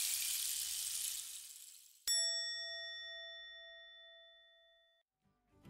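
Rain sound effect, an even hiss, fading out; then, about two seconds in, a single strike on a Buddhist bowl bell that rings out clearly and dies away over about three seconds.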